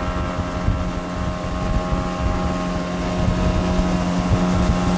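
Boat motor running steadily with the boat under way, holding one even pitch, with wind buffeting the microphone.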